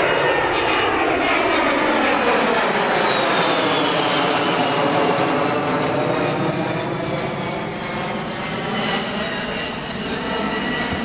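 NAMC YS-11's twin Rolls-Royce Dart turboprops flying past, a loud engine drone with a high whine that slides down in pitch as the aircraft goes by. It is loudest in the first half and eases a little later on.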